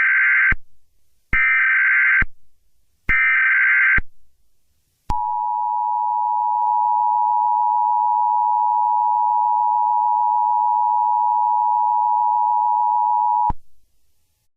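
Emergency Alert System header: three short bursts of SAME digital data tones, then the two-tone EAS attention signal held steady for about eight seconds before cutting off.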